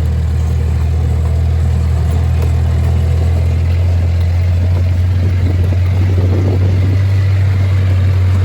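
Vehicle engine running steadily with a low, even drone; its note shifts slightly about four seconds in.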